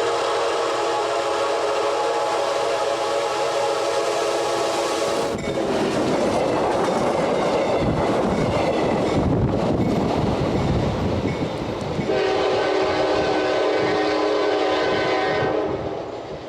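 Locomotive air horn sounding a long, steady chord, then a train rolling past with the rush and clatter of its wheels, then the horn chord again, fading away near the end.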